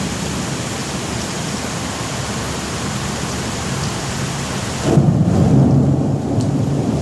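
Steady rain hiss, then about five seconds in a sudden, loud low rumble of thunder breaks in and keeps rolling.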